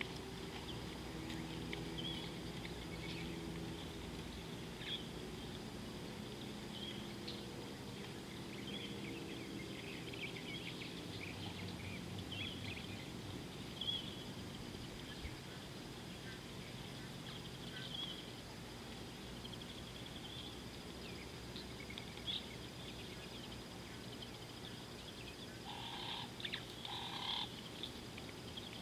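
Birds chirping on and off over a low steady hum and a faint steady high tone, with a louder cluster of calls near the end.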